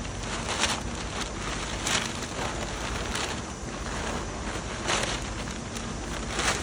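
Crumpled brown kraft packing paper rustling and crinkling as it is pulled out of a cardboard box, with a few sharper crackles.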